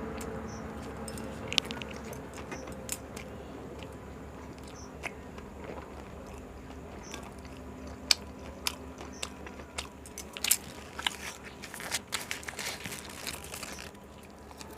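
Close-up chewing and biting of egg rolls, wet mouth clicks and crackles of the wrapped roll between bites, busiest near the end.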